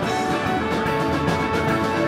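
Live band playing an instrumental passage, with sustained guitar notes over a steady drum kit beat.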